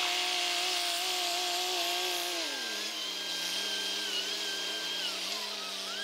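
A John Deere tractor engine running steadily under load, then its revs falling about two and a half seconds in as the tractor eases off at the headland.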